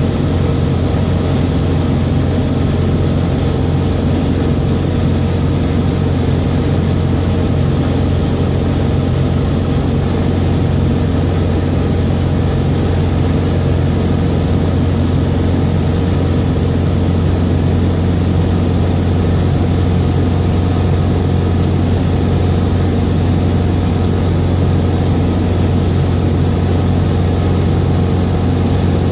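Sonex light aircraft's piston engine and propeller droning steadily in level flight, heard from inside the cockpit.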